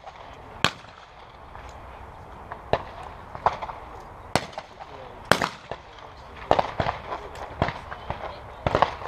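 Shotgun shots from shooters on a trap line, a string of single sharp reports at irregular spacing, some loud and close and others fainter from stations farther down the line.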